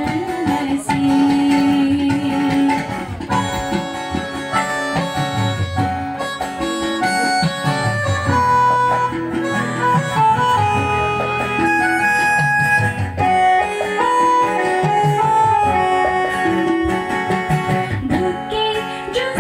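Instrumental break in a live song: an electronic keyboard plays a melody of long held notes over acoustic guitar.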